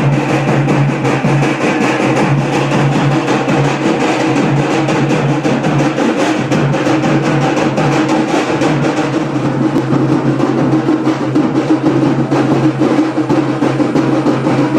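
Music with fast, continuous drumming like a drum roll, over a steady low held note.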